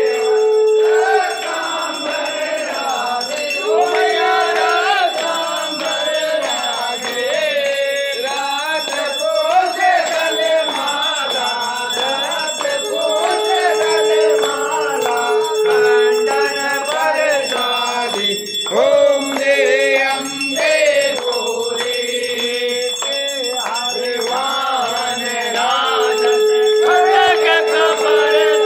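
A group of men sings a devotional aarti in unison while a brass hand bell rings continuously. A steady held tone comes in three times: at the start, about halfway, and near the end.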